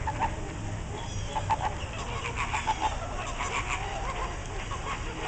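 A flock of flamingos calling: many short, overlapping honks, busiest from about a second in.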